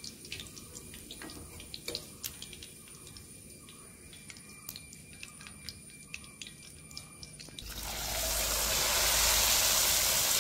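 Faint scattered crackles and pops of hot oil, then near the end a loud, steady sizzle starts up as battered baby corn lollipops deep-fry in a wok of oil.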